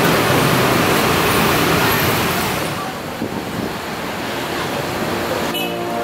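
Steady outdoor traffic noise, an even rushing hiss that eases after about three seconds. Music with steady tones starts right at the end.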